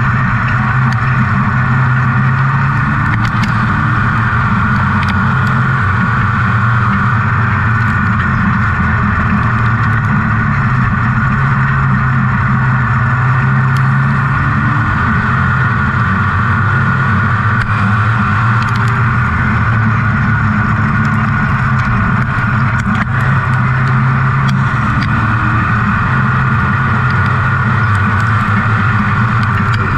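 Dirt-track super truck's engine heard from inside the cab at racing speed. It runs hard and loud, its pitch easing and picking up a little as the throttle comes off and back on through the turns.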